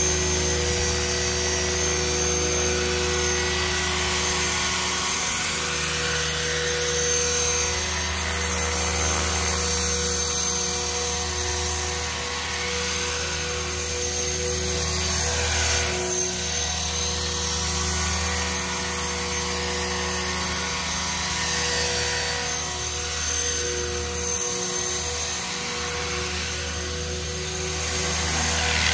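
Align T-Rex 500 RC helicopter in flight: its electric motor and spinning rotor blades make a continuous high whine and buzz that swells and fades a little.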